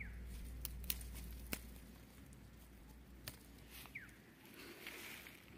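Faint snaps and leaf rustles of chilli plants as green chillies are picked by hand, with a few sharp clicks in the first half.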